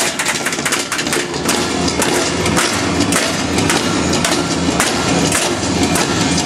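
Loud live show music: a dense run of percussive hits, drums struck with sticks, over a low sustained drone.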